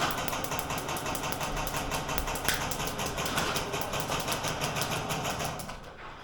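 Airsoft guns firing on full auto: a long, fast, even clatter of shots that stops shortly before the end.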